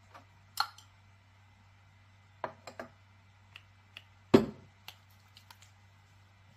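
Handling a small plastic hair-serum bottle: a scatter of short clicks and taps, with one louder thump a little over four seconds in, over a steady low hum.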